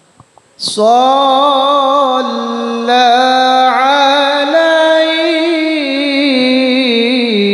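A single voice singing a long, drawn-out melismatic line of an Arabic sholawat, with held notes that waver and slide between pitches. A few faint clicks come just before the singing starts, about half a second in.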